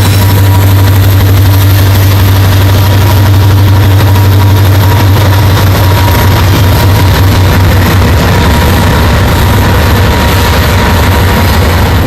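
Diesel freight locomotive running close by: a loud, steady, heavy low drone that holds without change.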